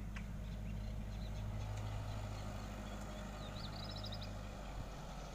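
Tractor engine running in the distance, a steady low hum that fades out near the end. A bird chirps a quick series of notes about four seconds in.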